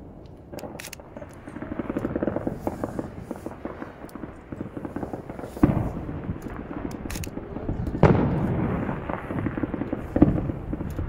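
Fireworks display: a rapid crackling of crackle effects, with three heavy booms of shells bursting in the second half.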